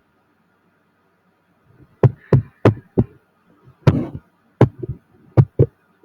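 Sharp, irregular clicks and knocks of someone working a computer at a desk, about ten in the last four seconds, starting about two seconds in.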